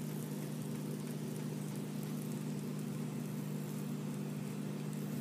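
Pancake batter sizzling softly in oil in a stainless steel frying pan, over a steady low hum.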